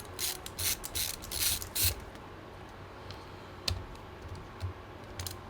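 Short clicks, taps and scrapes of plastic laptop parts being handled, clustered in the first two seconds, then two isolated clicks.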